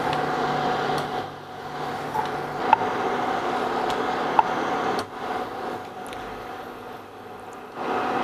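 Steady hum of an induction cooktop running while heating oil, with fixed tones in it. It drops lower twice and comes back up near the end, with a few faint ticks over it.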